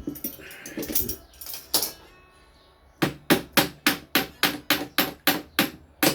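A hammer striking in a quick, even run of about a dozen blows, roughly four a second, while a part of an electric fan is knocked loose during disassembly. Before the run there are a few lighter knocks and the clatter of handled parts.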